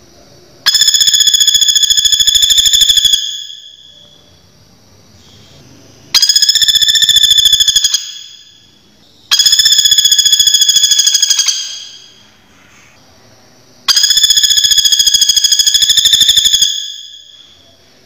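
Common flameback woodpecker calling: four fast, even rattling trills of about two to three seconds each, with pauses between them, each fading out at the end.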